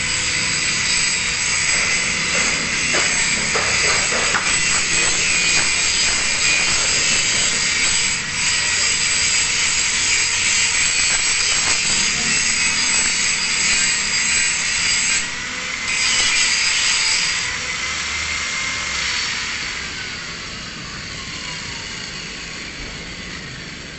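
Electric angle grinder running at full speed with a high steady whine while cutting steel. It drops out briefly about 15 seconds in, runs again, then winds down with a falling whine in the last few seconds.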